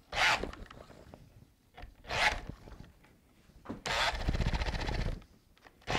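Corded drill driving a 1-inch auger bit into wood in short bursts, the third burst longer at about a second and a half: the bit is stuck, locked in the wood.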